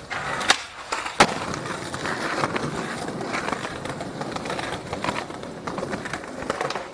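Skateboard wheels rolling on concrete, with two sharp clacks of the board about half a second and a second in, the second the louder.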